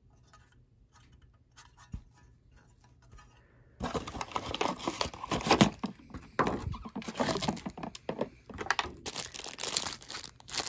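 Clear plastic packaging bag crinkling loudly as it is handled, starting about four seconds in and going on in irregular bursts. Before that there are only faint handling sounds and a single soft thump.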